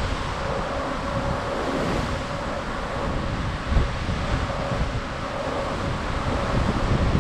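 Wind gusting and buffeting the microphone over the steady rush of the sea as a cruise ship cuts through choppy swells. A faint steady hum sits underneath.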